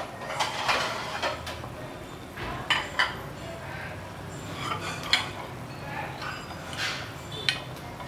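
Chicken soup at a rolling boil in a stainless steel pot: irregular bubbling and splashing, with a few sharp clicks and pops scattered through it.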